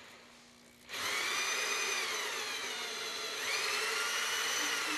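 An electric drill with a hole-cutting bit boring a pipe hole into the wooden wind chest of a qeej, a Hmong bamboo mouth organ. It starts about a second in, and the motor's whine dips and then climbs again in pitch as it cuts.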